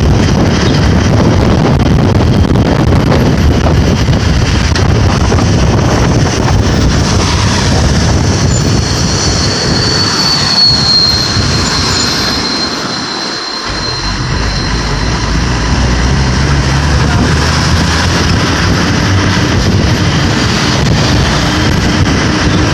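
Road and wind noise of a moving vehicle. A high squeal sounds about ten seconds in, the noise eases briefly a little after, then a steady low engine note comes through.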